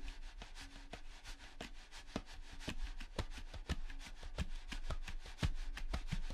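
Computer mouse and keyboard clicks, irregular and about four or five a second, over a faint low hum.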